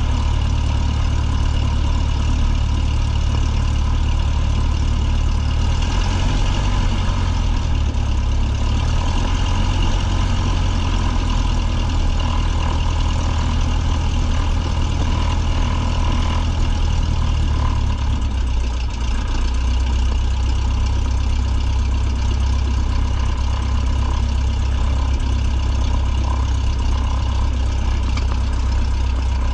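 Single-engine light plane's piston engine and propeller running at low taxi power, heard from inside the cockpit as a steady low drone. Its pitch shifts slightly twice.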